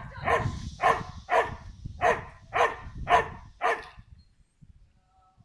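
Small black-and-white dog barking over and over, short sharp barks about two a second, stopping about four seconds in.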